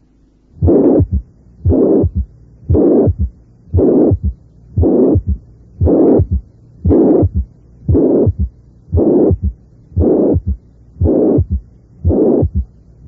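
Recorded heart sounds of mitral regurgitation at the apex, about one beat a second. Each beat is a loud blowing systolic murmur followed closely by two short sharp sounds, the second heart sound and a third heart sound; a third heart sound is usual when the mitral regurgitation is relatively severe.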